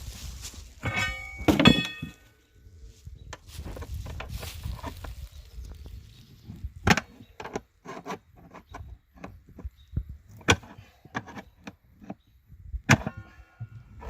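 Metal tools and parts clanking during tractor tire work: a string of sharp knocks and clinks, a few of which ring on briefly like struck steel, about a second in and again near the end.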